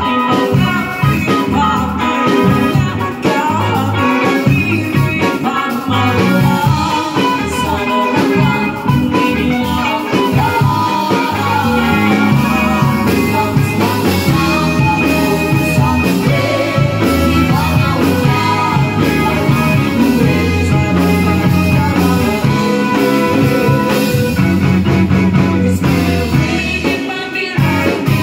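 Live pop-rock band playing: electric guitar, electric bass and drum kit with keyboard, under a male and a female singer singing together through a PA.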